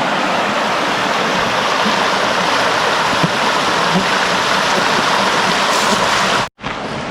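Fast-flowing river water rushing over rapids, a steady, loud rush. Near the end it cuts out abruptly for a moment and comes back a little quieter.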